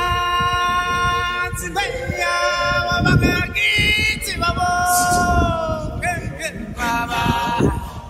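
Voices singing a melody in several long held notes with a wavering pitch.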